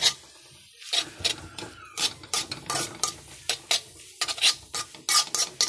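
Spatula scraping and clattering against a metal kadai as fried Maggi noodles and chopped vegetables are stirred and mixed, in irregular strokes with a short pause about a second in.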